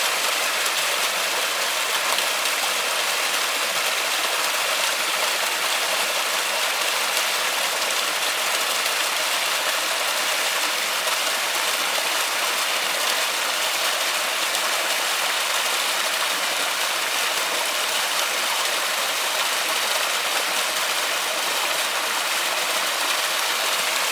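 Forest waterfall rushing: a steady, even hiss of falling water with no breaks or changes.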